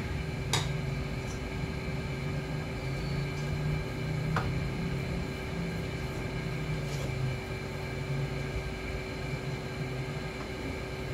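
Steady mechanical hum, its low part easing off about seven seconds in, with a couple of light clicks as small metal parts are handled on the workbench.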